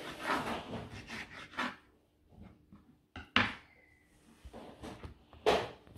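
Kitchen knife cutting raw beef on a wooden cutting board: a quick run of chops, then scattered light taps and two sharp knocks on the board, about three and five and a half seconds in.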